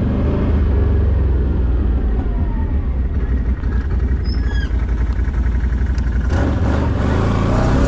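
Off-road motorcycle engine running steadily as the bike is ridden, getting louder about six seconds in. A few short high chirps about halfway through.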